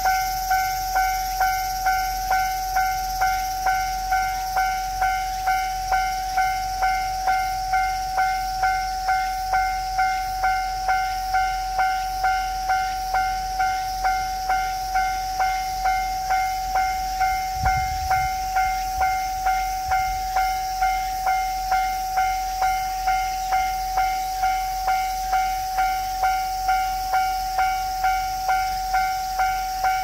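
Japanese railway level-crossing warning bell ringing its electronic 'kan-kan' tone, repeating evenly and steadily. A brief low rumble comes about eighteen seconds in.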